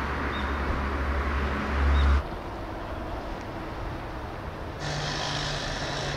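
Steady low rumble of heavy machinery running, with a few faint high chirps; the rumble swells, then changes abruptly about two seconds in and again near the end.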